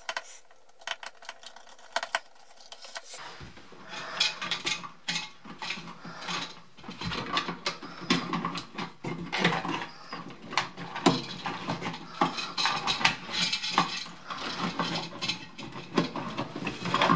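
Hands working insulated copper wires, a wire nut and a plastic wall switch and fan timer in an electrical wall box: irregular small clicks, rustles and light rattles, sparse at first and busier from a few seconds in.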